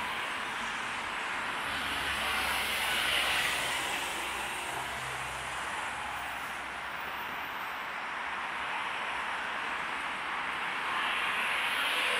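Steady rush of road traffic passing close by, mostly tyre noise. It swells as vehicles go by about three seconds in and again near the end, with a low hum underneath for the first few seconds.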